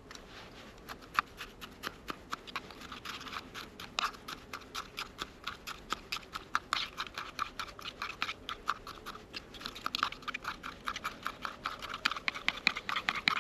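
Eggs being beaten by hand in a container: quick, regular clicking and scraping strokes, several a second, getting louder toward the end.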